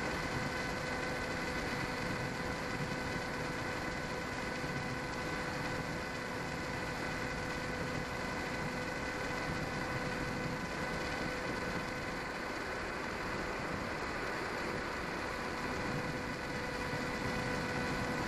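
Onboard sound of a small RC plane's brushless electric motor and propeller running at steady cruise throttle: a steady whine holding one pitch, under wind rush on the microphone.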